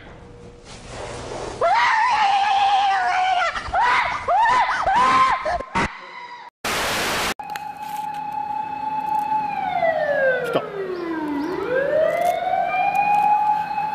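High, wavering cries in swooping arcs, then a short burst of hiss, then a long siren-like wail that holds a high pitch, slides steadily down and swoops back up again.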